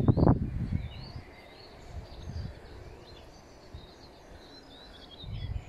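Small birds chirping and singing in the trees, with low thuds of footsteps in the grass in the first half-second and again near the end.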